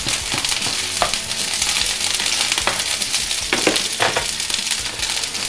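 Unpeeled garlic cloves and strips of green pepper sizzling steadily in hot oil in a frying pan, with a few sharp clicks here and there.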